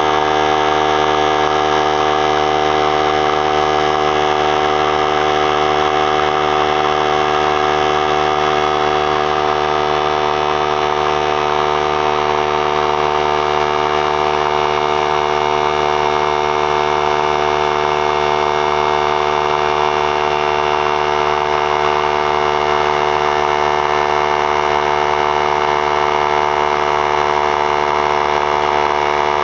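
3-gallon oilless pancake air compressor running loudly and steadily, its electric motor and pump filling the tank toward 100 psi.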